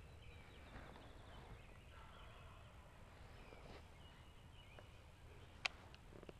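Faint, distant wild turkey gobbling, with a single sharp click near the end.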